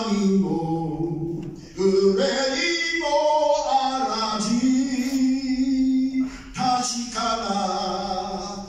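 A man's voice singing unaccompanied, with slow phrases and long held notes.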